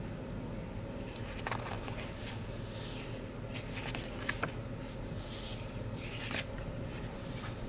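Paper sticker sheets being flipped and handled: quiet rustling and sliding of the pages, with a few sharper paper flicks as sheets are turned, over a low steady hum.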